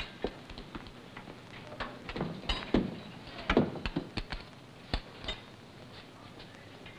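Irregular knocks and thumps of objects being handled and set down, a dozen or so scattered over several seconds, with a few duller lower thuds among them.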